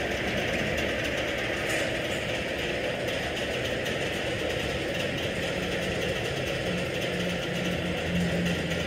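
Electric drive of a bifold hangar door running steadily as the door slowly lifts open, with a low hum coming in over the second half.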